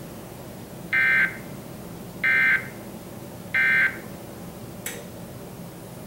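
Emergency Alert System end-of-message code from the Sage EAS ENDEC: three short, buzzy bursts of two-tone data, each about a third of a second long and spaced a little over a second apart, marking the end of the alert. A soft click follows near the end.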